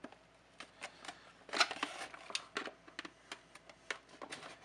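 Hard plastic toy-boat parts being handled and pried at with a small screwdriver: irregular clicks, taps and light scrapes, bunched about one and a half seconds in.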